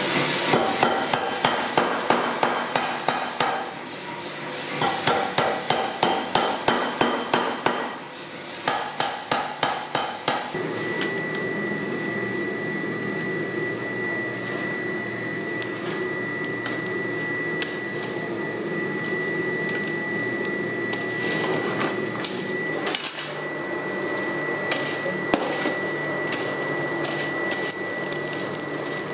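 Hand hammer striking steel on an anvil in three runs of rapid blows, about three a second, each blow ringing. After about ten seconds the hammering stops and a steady hum with a high whine carries on, broken by a few single knocks.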